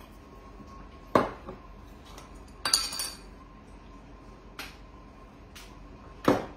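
Dishes and utensils clinking on a kitchen counter: a sharp clink about a second in, a brief rattling clatter near three seconds, and another sharp clink near the end.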